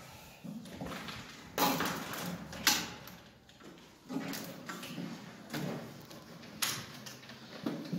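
Gloved hands working wires in an electrical distribution panel: about six short scraping, rasping sounds as cable ties are pulled tight around the wire bundles.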